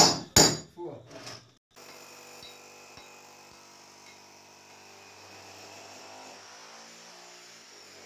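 Two loud, sharp knocks about half a second apart, followed by a few weaker knocks. After a brief break comes a faint, steady sound of held tones with a few light taps.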